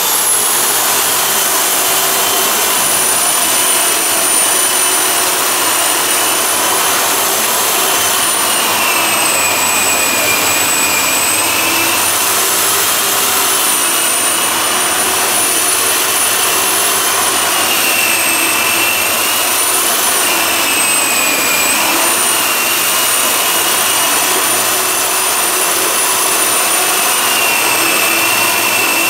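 A high-speed power tool running continuously with a steady rushing noise and a high whine that drifts slightly up and down in pitch as the load changes.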